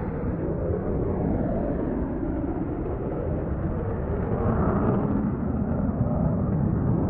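Steady low rumbling roar of a jet aircraft, swelling slightly about halfway through.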